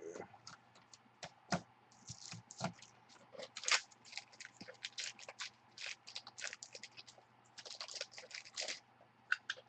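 Trading cards being handled and shuffled: a run of quick, irregular clicks, snaps and light scrapes of card stock, busiest from about two seconds in until near the end.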